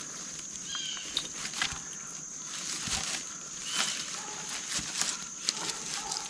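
Woodland ambience: a steady high-pitched insect drone with short bird chirps, and scattered clicks, knocks and rustles from sticks and logs being handled underfoot.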